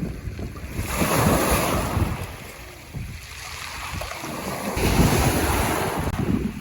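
Waves washing and breaking, in two surges, one about a second in and another near five seconds, with wind buffeting the microphone as a low rumble.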